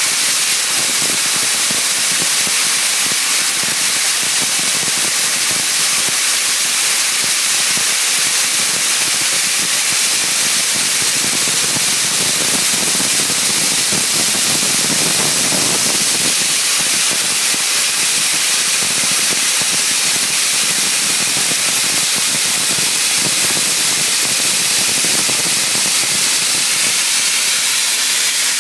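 Dry ice blasting gun blasting compressed air and dry ice pellets against a cold-molded wooden boat hull: a loud, steady hiss that runs without a break.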